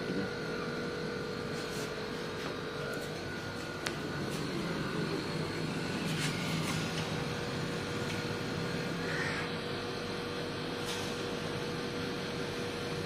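Steady motor hum with a constant mid-pitched tone, and a few faint clicks.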